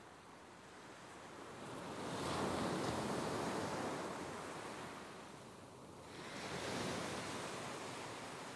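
Ocean surf washing onto a beach in two swells: one builds to a peak about two to three seconds in and fades away, and a second rises about seven seconds in.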